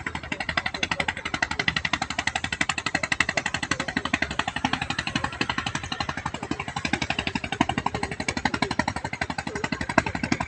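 Engine of a small wooden cargo boat chugging past at speed, a fast, even beat of several pulses a second that holds steady throughout.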